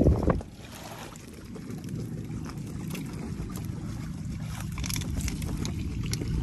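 Steady low rumble of a small boat out on the sea, with scattered light clicks and a brief louder sound right at the start.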